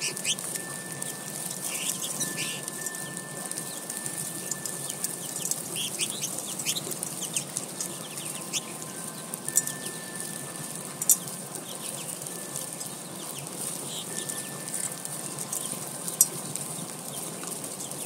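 American goldfinches feeding at tube feeders: short scattered chirps and wing flutters, mixed with many sharp little clicks and a few louder knocks.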